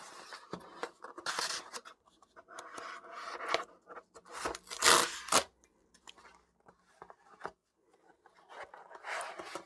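A cardboard mailer box being opened by hand: irregular scraping, rubbing and tearing of cardboard, with the loudest, sharpest rip about five seconds in.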